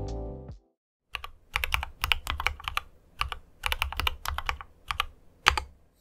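Typing on a GamaKay MK61 keyboard with spray-lubed Gateron Optical Yellow linear switches: quick runs of keystrokes in short clusters, each clack with a low thud under it. A music tail cuts off just before the typing starts.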